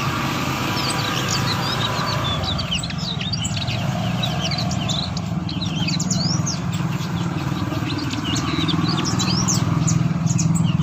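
Sumatran niltava calling: a rapid run of thin, high chirps and quick downward-sweeping notes, over a steady low hum.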